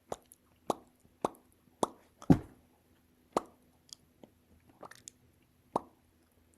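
Lip pops: a person's lips pressed together and burst open, a lip-strengthening exercise. About seven pops, each a short pop with a quick falling pitch, roughly two a second at first and then sparser, the loudest a little after two seconds in.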